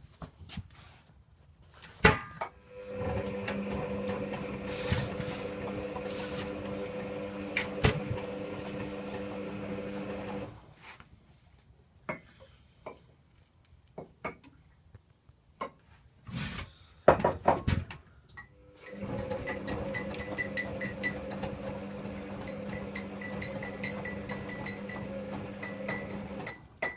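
Servis Quartz 6033 washing machine in the wash phase of a Cottons 40 cycle: its motor hums as it turns the drum for about eight seconds, stops for about eight seconds, then turns the drum again, the start-stop tumble of a wash. A few sharp knocks come near the start and during the pause.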